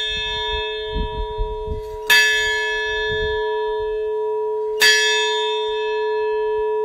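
Large tower bell rung by a rope, struck twice about two and a half seconds apart, each stroke ringing on with a long, steady hum that carries over into the next.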